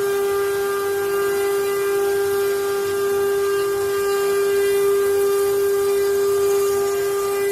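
CNC wood-carving machine's spindle motor running at constant speed: a steady whine with overtones over a steady hiss.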